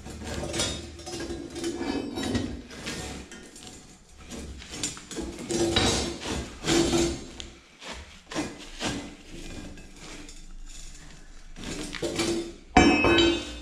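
A galvanised flat steel earthing strip is being bent against a concrete wall, using a ribbed steel bar as a lever. Irregular metallic clanks, knocks and scrapes, with the loudest knock near the end.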